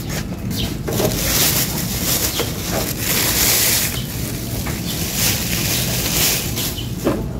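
Thin clear plastic bag crinkling and rustling as it is pulled off a boxed electric sandwich/donut maker, busiest in the middle.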